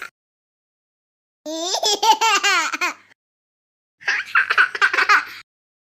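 Two short bursts of laughter played as a sound effect, each about a second and a half long, with a silent gap between them.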